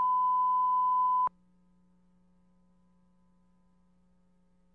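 A steady, loud pure-tone beep of the kind used as a recording's reference test tone, cutting off suddenly a little over a second in. After it comes a faint, steady low hum.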